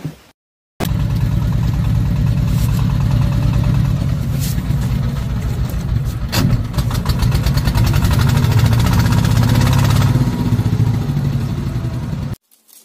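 An engine idling steadily with a fast, even throb, starting abruptly about a second in and cutting off just before the end, with a sharp knock about halfway through.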